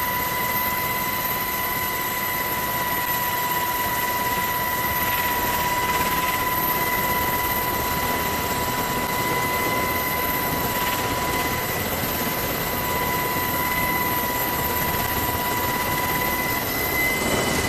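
SH-60 Seahawk helicopter running, heard from inside its cabin: a steady rushing noise with a steady high whine. The lower of two whining tones drops out near the end.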